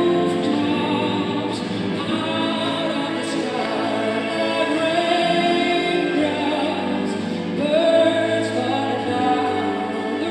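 Music: a woman singing a song with backing vocals and instrumental accompaniment, on long held notes.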